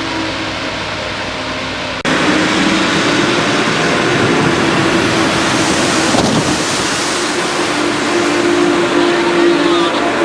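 Boat engine running at a steady pitch over a rushing hiss; the sound abruptly gets louder about two seconds in.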